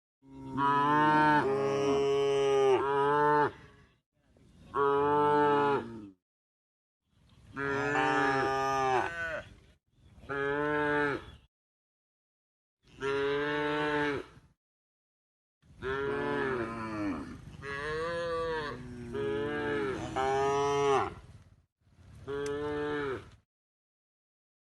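A cow mooing over and over: about seven drawn-out moos, some lasting several seconds, with silent gaps between them.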